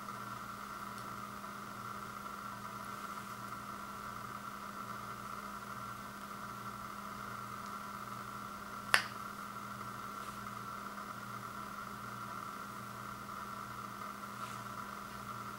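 Steady background hum, with one sharp clink about nine seconds in as a metal spoon knocks against the ceramic bowl while scooping.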